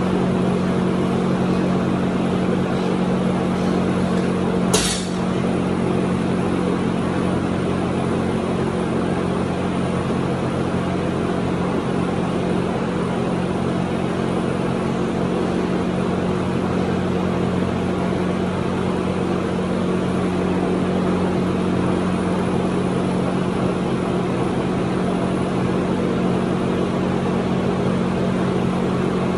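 Steady machine hum at an even low pitch, with a single sharp thud about five seconds in as a loaded barbell with bumper plates is dropped onto rubber floor mats.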